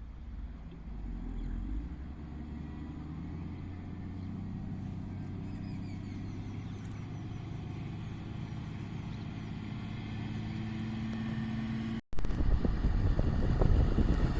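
Heavy diesel engine running steady, its pitch creeping up slightly before a sudden break about twelve seconds in, after which it comes back louder and rougher.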